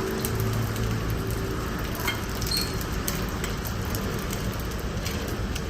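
Food sizzling as it fries on a hot pan, a steady crackling hiss with a low hum beneath it.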